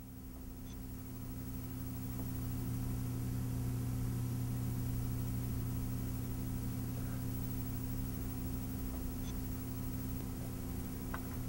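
A steady low hum with a faint hiss, fading in over the first few seconds and then holding level.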